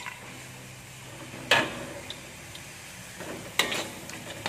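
Metal spatula stirring and scraping a thick spice paste around a wok, with a sharp knock of metal on the pan about a second and a half in and a few quicker clicks a couple of seconds later.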